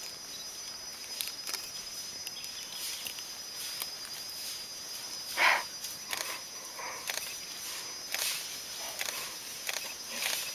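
Forest ambience: a steady high insect buzz under scattered soft rustles of leaves and vegetation, with one louder brief rustle about five and a half seconds in.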